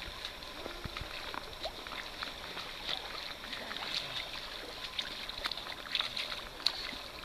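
Shallow river water splashing and sloshing around wading legs and a seine net, with many small sharp splashes and drips.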